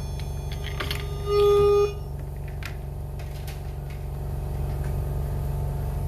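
Löwenstein elisa ventilator running with a steady low hum, giving one loud electronic beep about a second in that lasts about half a second. A few faint clicks can be heard.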